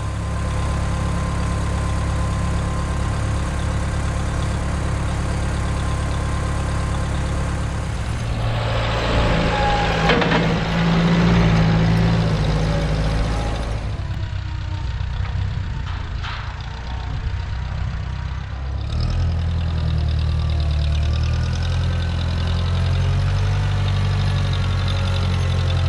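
Vehicle engine running steadily, its note shifting a few times.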